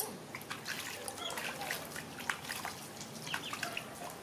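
Water splashing and trickling in a plastic basin as ducklings paddle in it and a wet baby macaque is dipped over it, with a few short high chirps.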